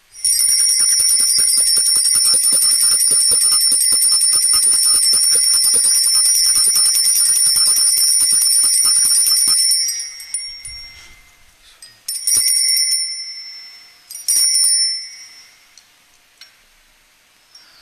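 Altar bells shaken in a long continuous peal of about ten seconds, then rung twice more briefly, each ring dying away. The ringing marks the elevation of the consecrated host at Mass.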